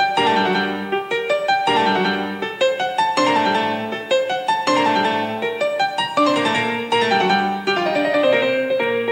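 Piano music playing a quick run of many short notes.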